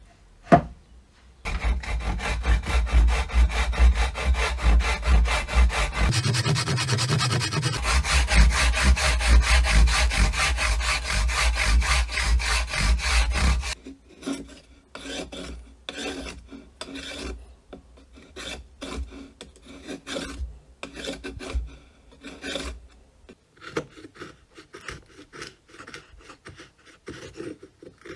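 Wooden hammer handle being shaped by hand. First comes a loud, continuous rasping of wood lasting about twelve seconds, which stops abruptly. Then a curved blade shaves the handle in separate scraping strokes, about one or two a second.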